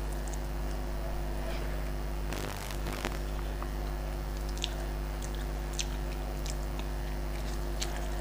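Close-up eating sounds: fingers squishing and mixing rice with fish curry on a plate, with soft wet chewing, a short rustle about two and a half seconds in and a few small sharp clicks later. A steady low hum runs underneath.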